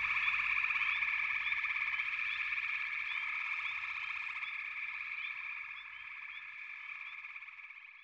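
Chorus of many frogs calling together: a dense, steady pulsing trill with short rising chirps repeating above it about twice a second. The chorus fades out over the last few seconds.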